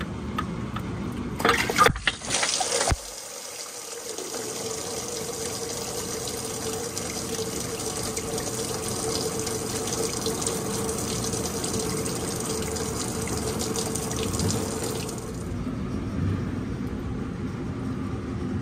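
Engine coolant pouring out of the water-pump opening into a catch pan as the pump comes off, a steady splashing stream that eases off about fifteen seconds in. It follows a short loud clatter of tools and metal about two seconds in.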